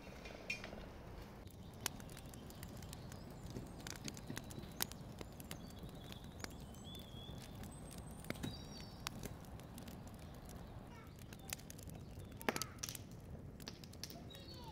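Small fire of dry twigs and branches crackling, with irregular sharp snaps and pops over a low steady background noise.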